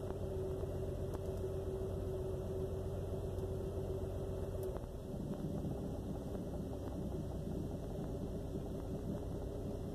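2001 Jeep Cherokee XJ's 4.0-litre inline-six idling rough and uneven, misfiring as if running on only four cylinders. A steady hum in the engine sound fades about halfway through, and the running grows more ragged after it.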